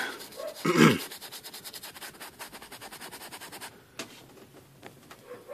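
Filbert brush scrubbing paint onto a canvas in quick, even strokes, stopping a little under four seconds in, followed by a single light click.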